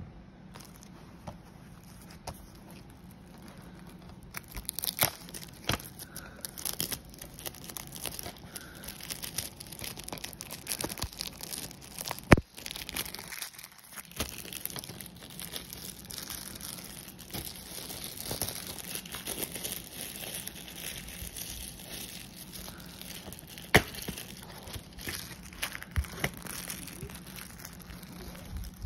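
Plastic shrink wrap being torn and peeled off a DVD case, crinkling for about twenty seconds. A few sharp plastic clicks come through it, the loudest about twelve seconds in and another near twenty-four seconds.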